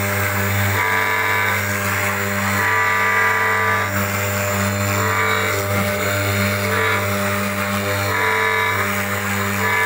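CNC router spindle running steadily while its bit carves into a wooden panel, the cutting noise swelling and easing every second or two as the bit moves through the cut.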